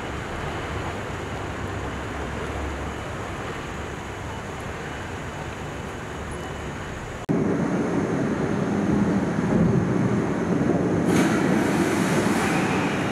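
Steady outdoor ambient noise, then an abrupt cut about seven seconds in to a louder, deep rushing rumble that swells brighter near the end. The rumble fits a gallery video installation's soundtrack for its projected churning water.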